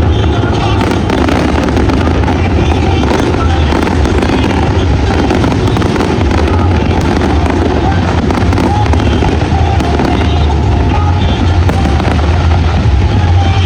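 Fireworks display going off continuously, loud and dense, with a steady low rumble underneath.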